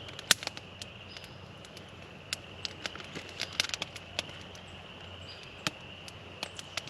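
Campfire of damp wood crackling, with sharp pops at irregular intervals.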